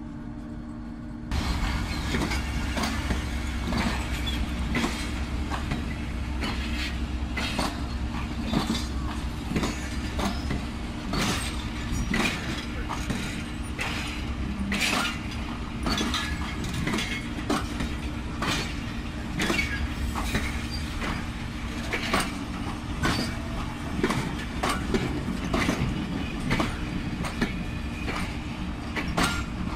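Passenger train coaches passing close by: a low rumble with a continuous, irregular clatter of wheels over rail joints, starting suddenly about a second in.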